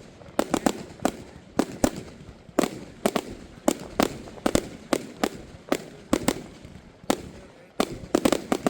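Fireworks display: a rapid, irregular run of sharp bangs from bursting aerial shells, two or three a second, crowding together near the end.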